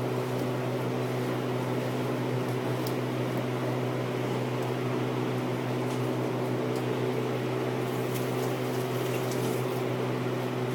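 Steady mechanical hum of a fan or air-conditioning unit, a constant drone with a few faint clicks from kitchen handling.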